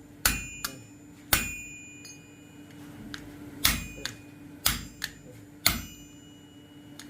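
Hand hammer striking red-hot iron on an anvil, each blow ringing metallically. There are five heavy blows, with a lighter tap after some of them and a pause of about two seconds after the second blow. A steady low hum runs underneath.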